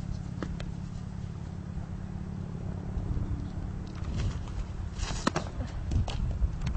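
A softball pitch smacking into a catcher's mitt about five seconds in, the loudest sound, with a couple of smaller knocks after it. Underneath runs a low, steady rumble.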